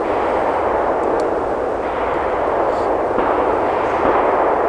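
Steady, even rushing noise with no distinct event in it, such as a shot or a release.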